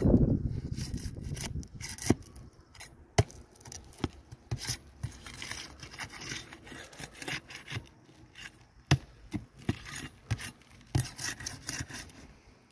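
Flat metal pry bar scraping and knocking under gritty asphalt shingles as they are pried up to loosen them, a run of irregular sharp clicks and scrapes. It opens with a brief low rumble.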